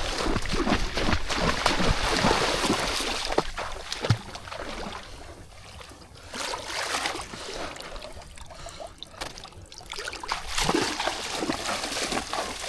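Water sloshing and splashing in shallow water, with scattered knocks and a sharper knock about four seconds in.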